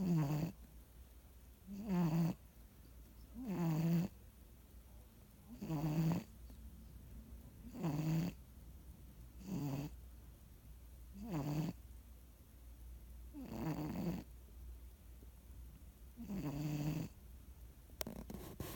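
Domestic cat snoring in its sleep: loud snores about every two seconds, each a short rasping breath. A few soft clicks near the end.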